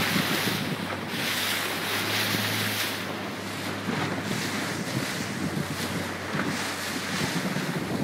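Strong wind, about 20 to 24 knots, buffeting the microphone in gusts over rushing, breaking waves, with a low steady hum underneath.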